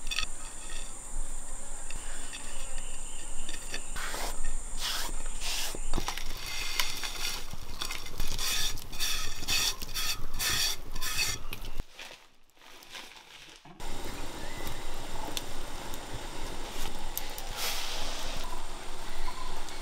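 Kitchen work by hand: utensils clinking and scraping against a bowl as ingredients are stirred and mixed, in many short strokes. The sound breaks off into near silence for about two seconds midway. A steady high insect drone runs behind it for the first few seconds.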